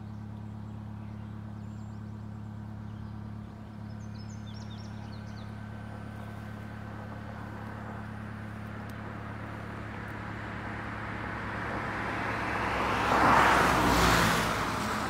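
A car going by on the road, growing louder over several seconds and loudest near the end, over a steady low hum.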